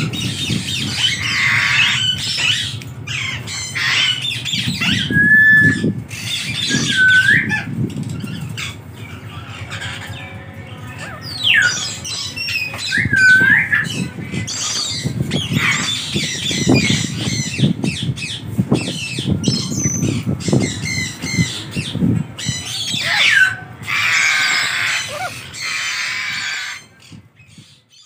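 Amazon parrot calling: harsh squawks mixed with short curved whistles, several whistled notes scattered through the middle and another shortly before a loud run of squawking near the end. It stops a little before the end.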